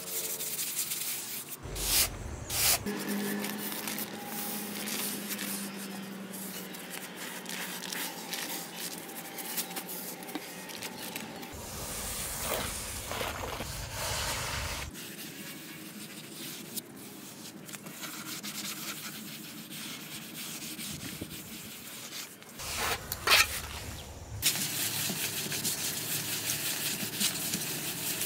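Scraping and rubbing from hand work on miniature building materials. The sound changes abruptly several times, with a few sharper knocks near the start and about two-thirds through.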